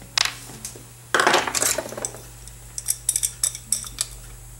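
Metal carburetor parts and tools clinking and clattering on a workbench, with a louder clatter a second in, then a run of sharp clicks near the end as a small ratchet wrench is worked on the Amal Monobloc carburetor body.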